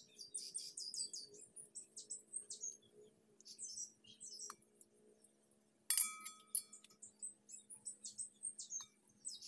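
Small birds chirping in quick, repeated high calls throughout, over a steady low hum. About six seconds in comes a single sharp metallic clink that rings briefly: kitchen scissors striking the stainless steel bowl as boiled chicken skin is cut.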